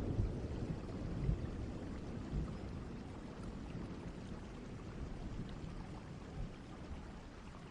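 Steady rain of a distant thunderstorm. A low rumble of thunder dies away in the first moments, and the rain grows slowly softer.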